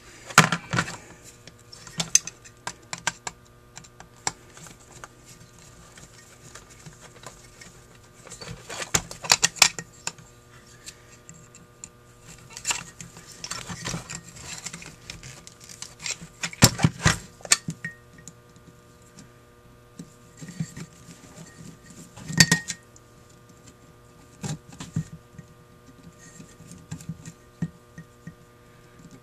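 Metal carburetor parts clinking and knocking as a Holley 1904 one-barrel carburetor is handled and worked on with a screwdriver during disassembly: scattered clicks and taps in small clusters with quiet gaps between, over a faint steady hum.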